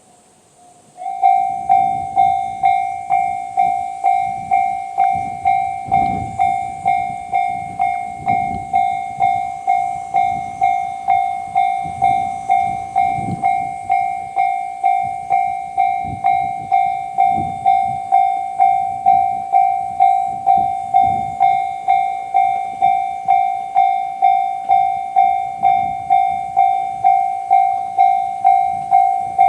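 Japanese level-crossing warning bell, the JR standard electronic sound, switching on about a second in and then ringing in an even, repeating ding at about three strikes every two seconds.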